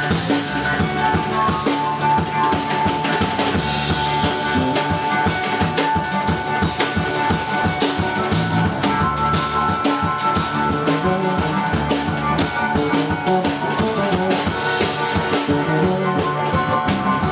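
Rock band playing, with a busy drum kit (kick, snare and rimshots) under sustained held melodic tones.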